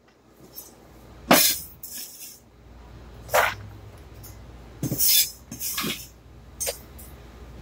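Cleaver knocking and scraping in a handful of short, sharp strokes as diced onion is spread in a nonstick frying pan and scraped off a wooden cutting board, over a low steady background hum.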